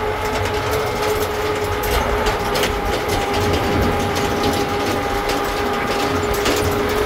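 Vehicle cabin noise while driving: a low engine and road rumble with a steady whine held at one pitch, and frequent short rattling clicks from the body shaking over a rough road.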